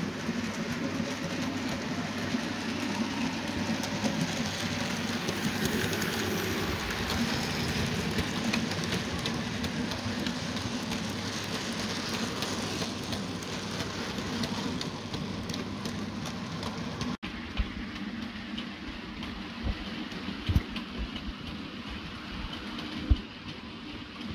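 OO gauge model freight train running along the track: a steady rumble and rattle of the wagon wheels, with fine clicks over the rail joints. About two-thirds of the way through the sound cuts and becomes quieter, with a few short low thumps.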